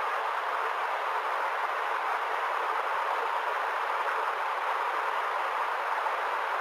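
Rushing water: a steady, even rush with no separate splashes or drops standing out.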